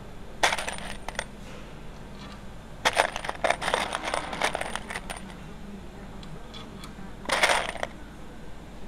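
Light metal clinking and rattling of aluminium door-frame parts being handled against each other. It comes in bouts: a short one about half a second in, a busier run from about three to five seconds, and another near the end.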